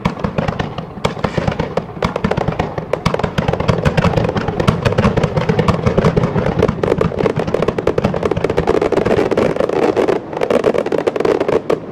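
Fireworks display in a rapid barrage: dense crackling and popping bangs, many a second, with a brief lull about ten seconds in.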